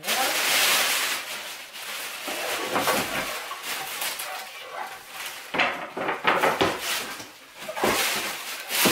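Rustling and crinkling of foam packing sheet as wooden flat-pack furniture panels are pulled from a cardboard box, with a few knocks of the panels about two-thirds of the way through and near the end.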